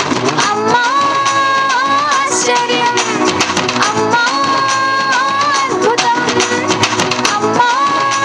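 Recorded Telugu devotional song playing: an instrumental passage with a held, repeating lead melody over a quick percussion beat.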